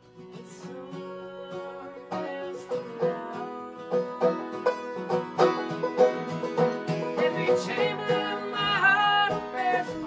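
Acoustic guitar and banjo playing a folk song live, starting just after a near-silent moment and growing louder over the first few seconds into a steady plucked rhythm, with a woman's voice singing a wavering note near the end.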